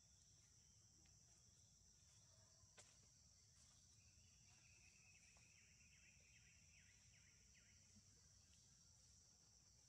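Near silence with a faint, steady, high-pitched insect drone, with a run of faint chirps in the middle and a small click near three seconds in.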